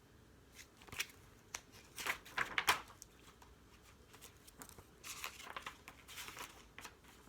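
Faint rustling and crinkling of paper as a picture book is handled and its pages turned, with a few sharp clicks about a second and two seconds in.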